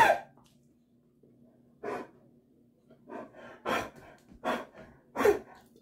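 A dog's hacking cough in a spell of about six harsh bursts, unevenly spaced, the loudest at the start and about five seconds in. It is an allergy cough that sounds like kennel cough.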